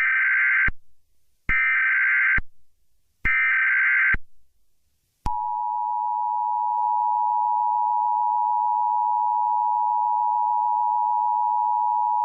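Emergency Alert System header: three short, evenly spaced bursts of SAME digital data tones, then the steady two-tone EAS attention signal starts about five seconds in and holds. It marks the start of an Amber Alert (child abduction emergency) activation.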